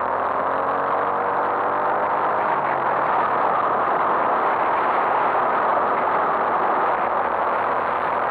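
Honda MSX125's single-cylinder four-stroke engine accelerating, its pitch rising during the first second or so. After that, wind and road noise from riding at speed covers most of the engine sound.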